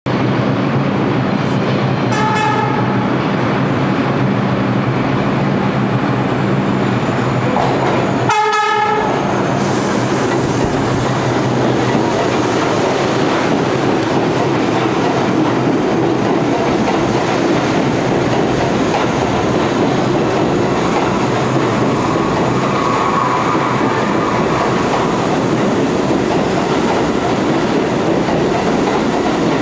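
R62A subway train running through the station without stopping, passing close by with a loud, steady rumble. Its horn sounds briefly about two seconds in and again, louder, at about eight seconds.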